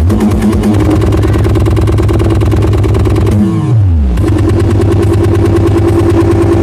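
A huge outdoor sound system playing a loud, bass-heavy electronic opening track with fast, even pulses over held deep bass notes. About three and a half seconds in, the bass slides downward and then settles on a new held note.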